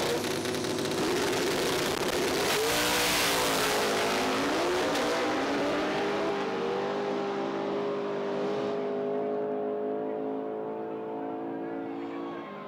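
Two Fox-body Ford Mustang drag cars launching and accelerating at full throttle on a quarter-mile pass. The engine note climbs and drops at several gear shifts in the first five seconds, then holds a steady high pitch and fades as the cars run away down the track.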